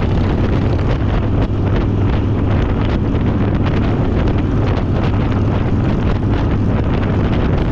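Wind buffeting the microphone on a moving Harley-Davidson Fat Boy motorcycle, over the steady low running of its V-twin engine at cruising speed.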